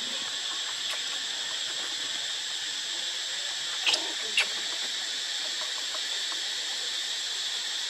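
Steady high-pitched insect drone, with two short sharp squeaks about half a second apart roughly four seconds in.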